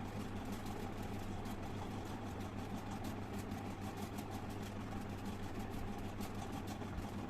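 Steady low electrical hum with faint scattered ticks; no sneeze or nose-blowing is heard.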